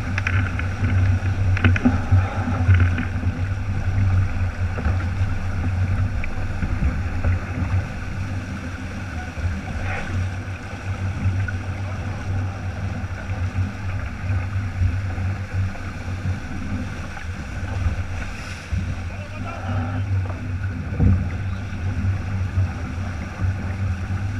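Wind buffeting the camera microphone and water rushing along the hull of a keelboat sailing heeled, a steady noise throughout.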